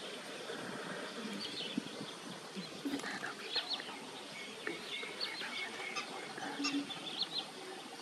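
Birds calling in short, high chirps, scattered many times from about three seconds in, over a steady background hiss.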